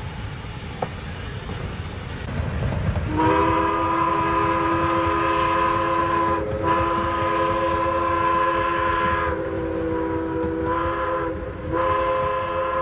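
A train sounding its horn, a chord of several steady tones, in long blasts broken by short gaps, over the low rumble of the train running.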